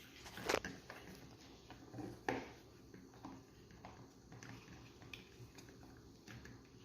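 Faint handling sounds of a plastic Play-Doh fries-maker toy as dough is worked into it: a few soft taps and clicks, the clearest about half a second in and twice around two seconds in.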